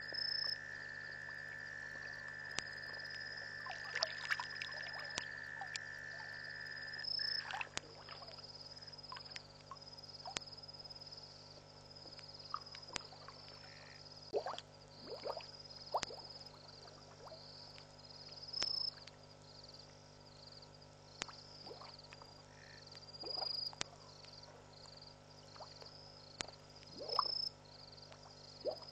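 Night chorus of frogs and insects calling at a waterhole: a steady high trill that stops about seven seconds in, a short high chirp repeating every second or two, and scattered short falling calls. A steady low hum runs underneath.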